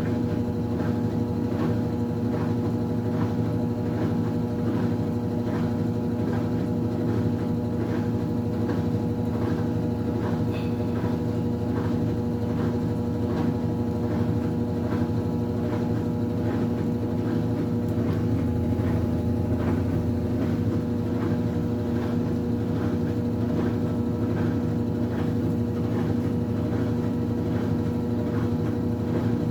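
Consul 9 kg CWB09BB washing machine in its spin cycle: a steady motor hum and whir from the spinning drum, with a faint regular pulse, holding an even speed throughout.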